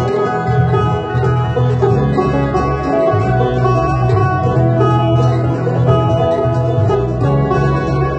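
Banjo picking a country-folk tune in an instrumental stretch without singing, over a fuller accompaniment with sustained low notes underneath.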